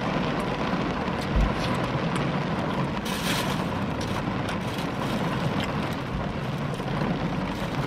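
Heavy rain drumming steadily on a car's roof and windshield, heard from inside the cabin, with a short crackle about three seconds in.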